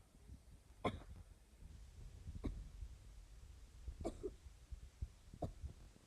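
Stomach growling: a faint low rumble with a handful of short gurgles and pops, two of them close together a little past the middle.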